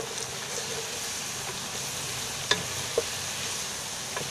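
Sliced onions and garlic paste sizzling in oil in a pan, with a few sharp knocks against the pan as they are stirred, the two loudest about two and a half and three seconds in.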